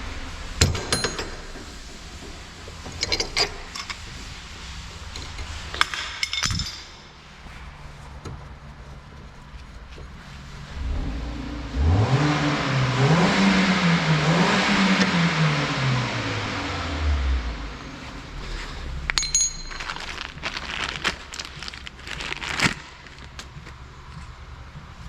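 Scattered sharp metal clinks of tools and parts being handled, with an engine revving up and down for about five seconds in the middle.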